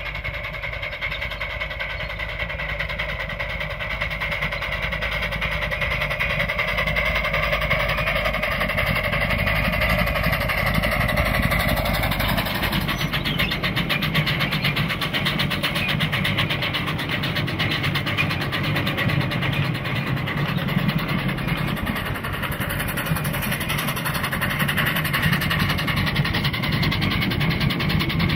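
Quarter-scale live steam locomotive, a copy of Denver & Rio Grande #268, running with its train of riding cars on 9-inch-gauge track: a steady running noise of exhaust and wheels on the rails, growing louder over the first ten seconds or so.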